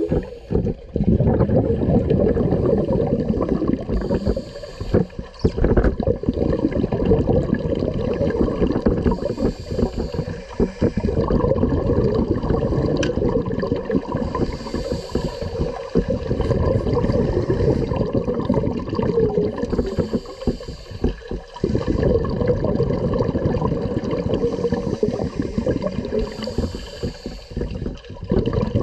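Scuba regulator breathing recorded underwater: a steady bubbling rumble of exhaled air, with a brief hiss of inhalation about every five seconds.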